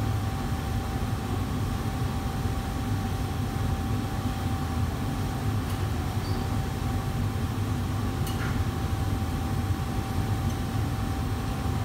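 Steady roar of a commercial kitchen's gas range burners and extraction hood running, with a constant tone held over it. Two faint clinks of a utensil come about six and eight seconds in.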